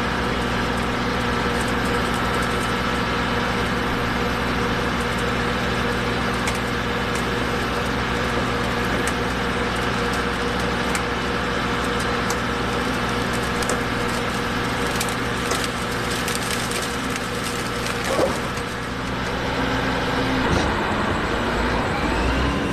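John Deere combine harvester running steadily while harvesting corn, a constant engine drone with scattered sharp cracks and snaps. The sound dips briefly about eighteen seconds in and shifts a little after that.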